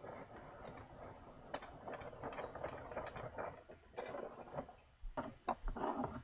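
Stanley No. 64 spokeshave taking test cuts on a piece of wood: a run of short rasping shaving strokes, close together at first and more separate later, as the blade setting is tried out.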